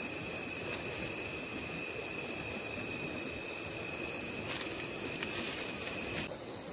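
Steady forest ambience: a constant high-pitched insect drone over an even rushing noise. The drone cuts off suddenly near the end.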